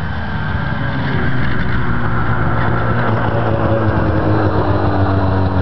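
Arctic Cat F5 Firecat snowmobile's two-stroke twin engine running, growing louder over about the first second and then holding steady.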